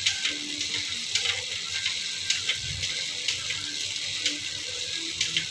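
Bicycle drivetrain turning on the stand: the chain runs over the cassette and rear derailleur pulleys with a steady hiss, with a click about once a second as the gears are shifted and tested after the pulley tensioner was refitted.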